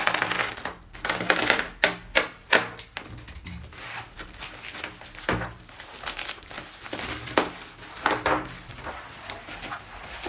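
Packaging crinkling and rustling as a parcel of keycaps is opened by hand, in a run of irregular crackles that are loudest in the first few seconds.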